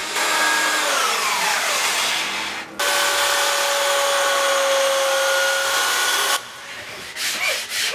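A whining machine noise falling in pitch, then an electric belt sander running steadily on a wooden board with a level whine, stopping about six seconds in. Near the end, quick regular rubbing strokes of sanding begin.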